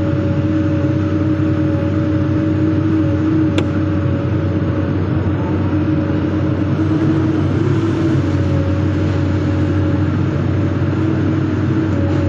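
Hydraulic excavator's diesel engine running steadily, with a steady whine above the low hum. A single sharp click comes about three and a half seconds in.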